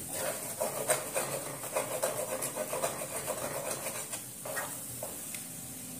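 Wooden spatula stirring and scraping a thick besan-and-ghee mixture around a nonstick pan as it roasts, with a faint sizzle underneath; the stirring eases off about five seconds in.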